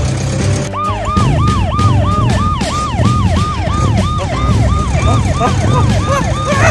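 A police siren starts about a second in, a fast rising-and-falling wail of about three cycles a second; near the end a second siren overlaps it. Background music runs underneath.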